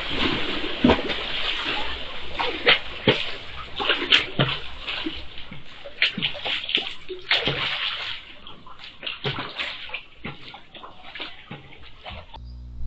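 Water sloshing and splashing irregularly, with many sharp splashes, easing off somewhat after about eight seconds.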